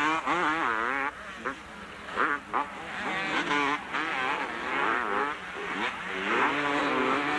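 Several two-stroke motocross bikes racing, their engines revving up and down as riders go on and off the throttle, with overlapping pitches and a couple of louder bursts a few seconds in.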